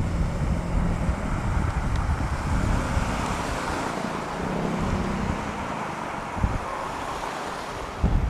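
CSX intermodal freight train rolling by, its low rumble mixed with heavy wind buffeting the microphone.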